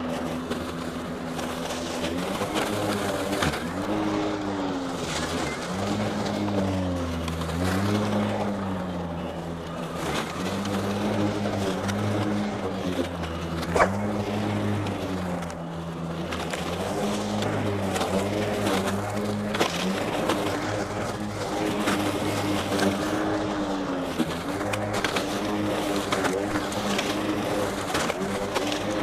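RYOBI 40V HP Whisper Series cordless mower's brushless motor and 21-inch blade running under heavy load as it is pushed in all-wheel drive through tall weeds and brush; the motor's pitch sags again and again as it bites into thick growth and recovers each time. A single sharp tick about 14 seconds in.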